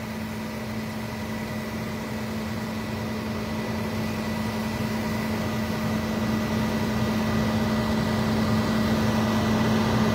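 A motor running steadily with a low, even hum, slowly growing louder.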